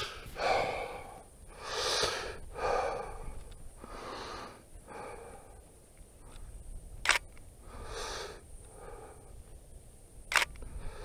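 A camera shutter clicking twice, about three seconds apart, in the second half. Between the clicks and around them, a person's heavy breathing goes in and out about once a second.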